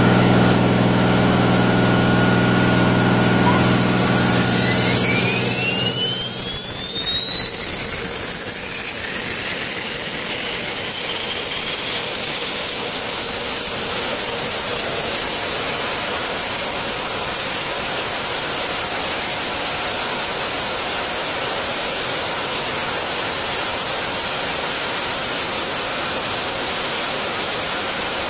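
Microturbo Saphir gas-turbine air producer of a SEPECAT Jaguar starting up: a steady low hum for the first few seconds, then a whine climbing steadily in pitch for about ten seconds as the turbine spools up. It settles into a steady high-pitched whine over a rushing roar, running at speed.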